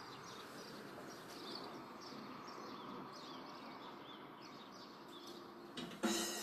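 Faint outdoor ambience with small birds chirping over and over. A louder sound cuts in near the end.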